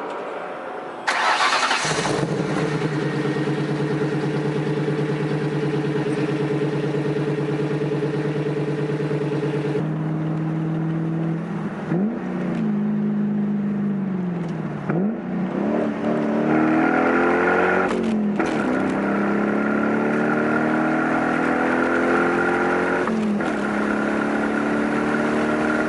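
A car engine is started and then idles with a steady, even note. From about ten seconds in it pulls away and accelerates through several gears, the pitch rising and then dropping at each shift. It runs smoothly, which the owner takes to mean the misfire is cured.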